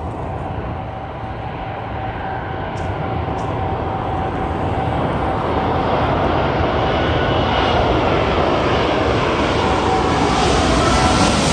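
Jet engines of an Airbus A380-841, Rolls-Royce Trent 900 turbofans, a rushing noise with a faint steady whine above it, growing steadily louder as the aircraft comes closer.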